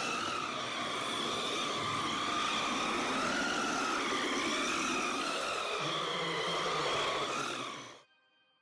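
Small electric motor of a homemade RC car prototype whining as it drives itself on autopilot, its pitch wavering slightly as speed changes. A lower hum joins about six seconds in, and the motor cuts off suddenly near the end.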